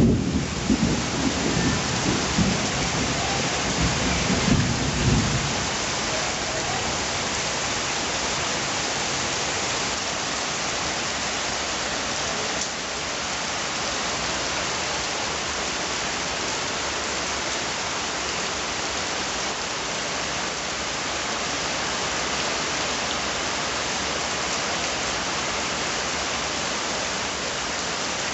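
Steady rain, with a rumble of thunder in the first few seconds that dies away about five seconds in.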